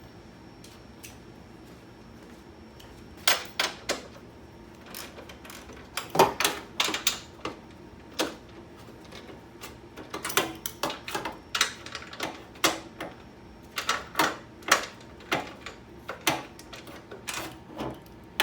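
Ratchet wrench clicking in short irregular bursts as nuts are worked loose, with a few sharper metal clinks among them.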